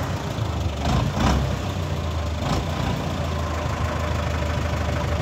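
Farm tractor's diesel engine running steadily at idle, with a couple of short knocks about a second in.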